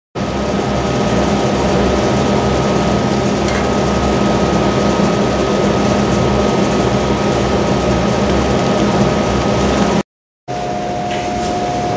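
Steady machine hum with hiss and a faint constant high tone. The sound cuts out briefly about ten seconds in.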